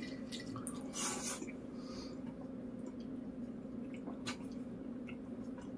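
Quiet eating and drinking: faint chewing and sips through a straw from an iced drink, with a few small clicks, over a steady low hum.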